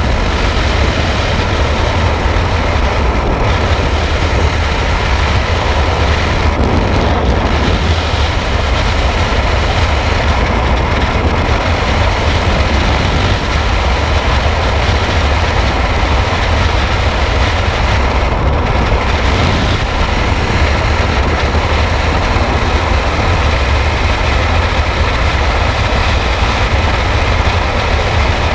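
Freefall wind blasting a helmet-mounted action camera's microphone: a loud, steady rush of air, heaviest in the deep rumble, with no break.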